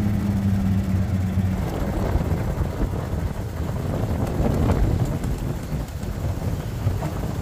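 Golf cart driving along: a steady low hum for about the first second and a half, then uneven rumbling ride noise with wind on the microphone.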